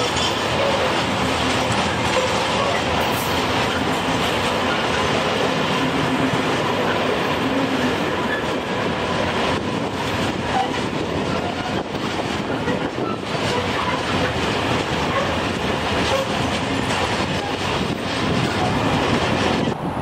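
Container freight train's loaded flat wagons rolling past at close range: a steady, loud noise of steel wheels running on the rails, with a few brief faint wheel squeals.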